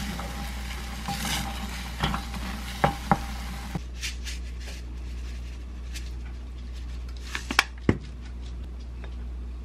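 Wooden spatula stirring thick abalone-vegetable porridge in a pan, with knocks against the pan and a sizzling, bubbling hiss for about four seconds. The hiss then drops away and a few sharp clicks and light taps follow while sesame seeds are sprinkled over the dish, the loudest clicks near the end.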